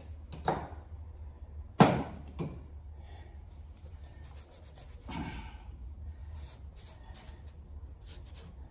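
Cloth shop rag rubbing over the exhaust-port face of a cast-iron engine cylinder head, with one sharp knock about two seconds in and a few lighter ticks, over a low steady hum.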